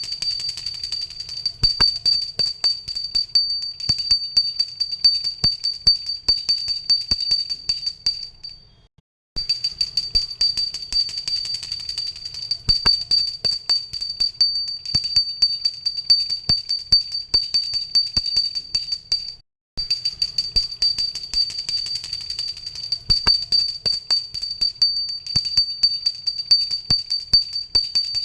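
Pooja hand bell (ghanti) rung continuously, its clapper striking rapidly under a steady high ringing tone. The ringing breaks off briefly twice, about nine and nineteen seconds in, then starts again.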